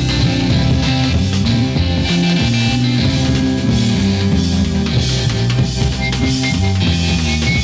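Rock music with no singing: drum kit, bass guitar and electric guitar playing an instrumental passage.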